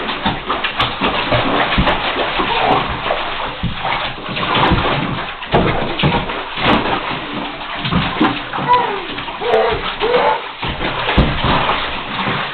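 Water splashing and sloshing in a bathtub, with repeated slaps of water throughout. A child's voice is heard briefly about two-thirds of the way through.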